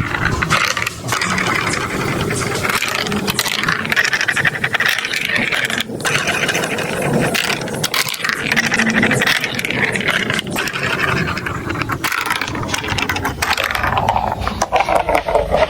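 Hard plastic marble-run toy pieces rattling and clicking without a break, with a few sharper knocks.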